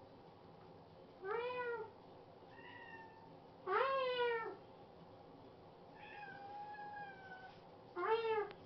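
A cat meowing: three loud meows that rise then fall in pitch, about a second in, near four seconds and near the end, with two softer, longer calls between them.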